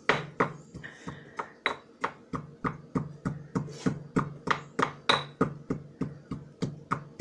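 Stone pestle pounding in a granite mortar (lesung batu), a steady run of dull knocks about three times a second.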